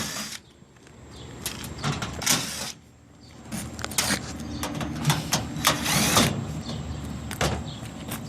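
Access panel of a rooftop air-conditioning condenser unit being opened: scattered clicks and metal knocks, with two short whirring bursts about two and six seconds in.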